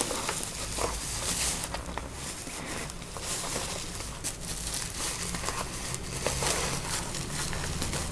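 Plastic courier mailer and bubble wrap crinkling and rustling as the package is handled and the bubble-wrapped box is slid out of the bag.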